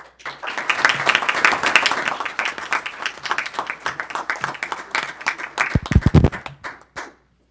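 A small roomful of people clapping for about seven seconds, stopping just before the end, with a brief low thump about six seconds in.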